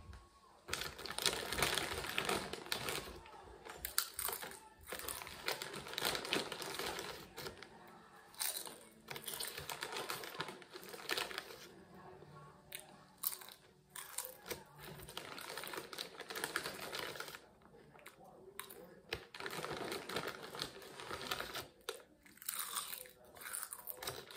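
A plastic chip bag crinkling as a hand rummages in it, mixed with crunching as potato chips are bitten and chewed, in irregular bursts with short pauses.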